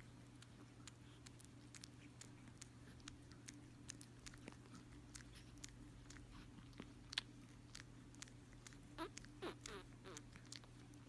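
Near silence: a faint steady hum with scattered soft clicks, and a few faint short rising squeaks about nine to ten seconds in.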